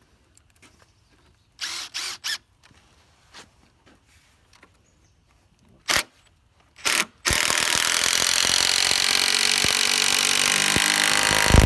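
Cordless drill-driver sinking a long timber screw into rough-cut sawmill lumber. It gives a few short trigger blips first, then runs steadily for several seconds as the screw pulls the joint in. A heavy thump comes near the end.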